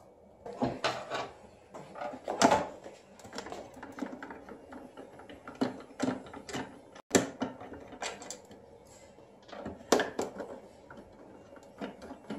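Irregular clicks and knocks of hard plastic being handled: a screwdriver and hands working the grey plastic front cover of a WiAIR-1000 air-cushion machine to open it and reach the heat-sealing rollers. Two knocks stand out, about two seconds in and about ten seconds in.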